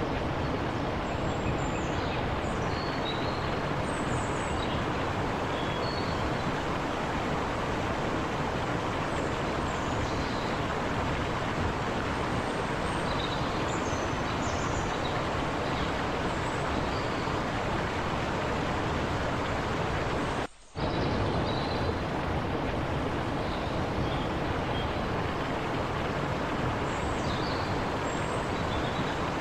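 Forest river flowing and babbling over rocks in a steady, even rush of water, with short high chirps scattered through it. The sound drops out for a split second about twenty seconds in.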